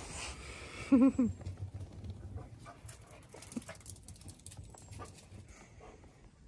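A puppy gives one short, wavering whine about a second in, amid faint scuffling and rustling.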